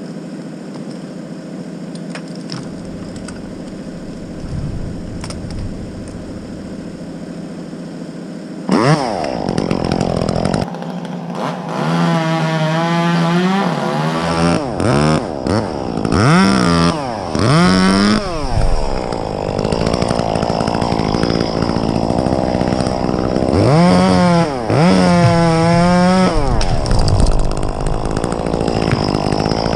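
A chainsaw engine runs at a steady low idle. About nine seconds in it is throttled up and then revved again and again, its pitch rising and falling with each squeeze of the throttle, and it runs at high speed in between.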